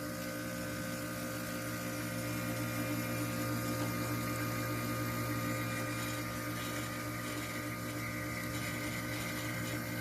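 Carrier Siesta 6100 BTU window air conditioner with its compressor running and its fan not turning: a steady electrical hum. The fan has failed.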